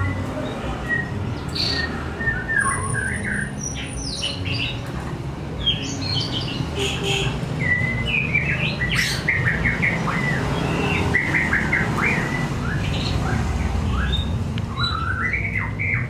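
White-rumped shama (murai batu, white-tailed Bahorok Langkat strain) singing a varied song of short whistled phrases and quick chirping runs, over a steady low background rumble.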